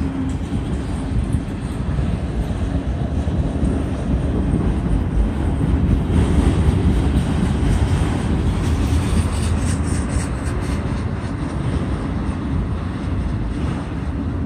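Autorack freight cars of a slow-moving CSX train rolling past: a steady, dense rumble of steel wheels on rail that swells a little midway, with a few faint clicks later on.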